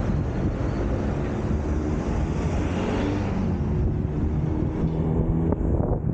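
Road traffic: motor vehicles running past with a steady low engine rumble.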